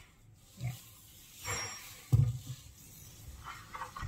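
Handling noise and a loud bump about two seconds in, then quick repeated scrubbing strokes of a sponge or cloth on a glass gas cooktop.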